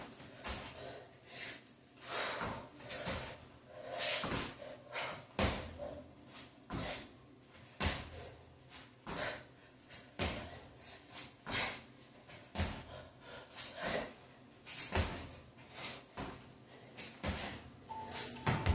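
Repeated thuds and scuffs of sneakered feet and hands landing on a wood-look plank floor, about once a second, as she jumps her feet back to a plank and in again in a burpee-style drill, with her hard breathing between the landings.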